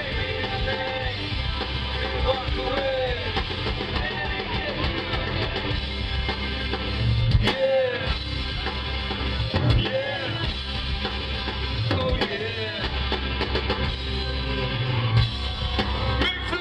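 Live rock band playing through a PA: electric guitars, bass and drum kit with a singer, heard from within the crowd.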